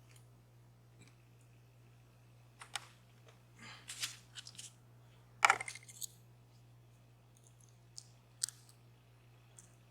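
Scattered small clicks and taps of the parts of a disassembled DOM Plura lock being handled, loudest a little past halfway.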